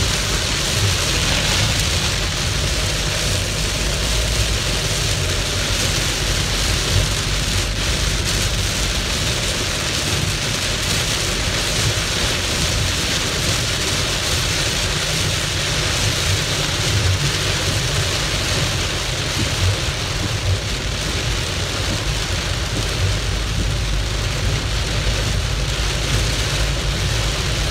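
Heavy rain drumming on a car's windshield and roof, heard from inside the cabin, a steady dense hiss. A steady low rumble of the moving car sits underneath.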